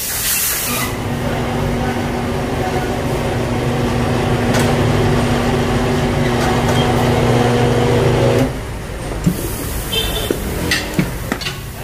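Wheel balancing machine spinning a car wheel and tire on a re-check run after the wheel weights are fitted: after a short burst of noise, its motor hums steadily for about eight seconds, then stops abruptly.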